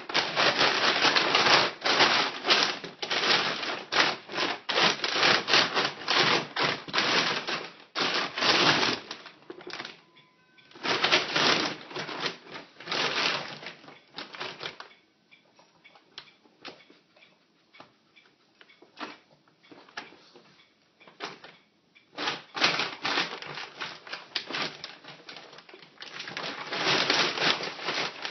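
Plastic dog food bag crinkling and crackling in bursts as a dog noses and digs into it, with a quieter stretch about halfway through.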